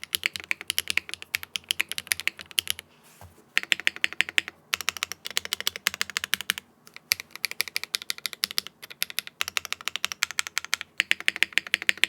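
Fast typing on a Zoom 75 mechanical keyboard with HMX Xinhai linear switches on an aluminium plate and a flex-cut PCB, with no foam inside, giving a quieter, thinner sound. The typing comes in bursts of rapid key strokes broken by four or five brief pauses.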